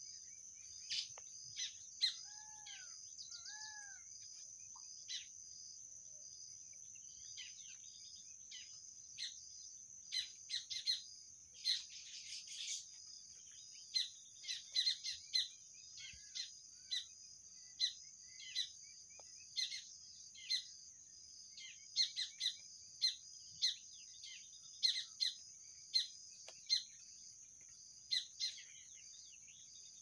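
Baya weavers chirping: many short, sharp chirps, often several a second, over a steady high-pitched buzz, with two short arched whistled notes about three seconds in.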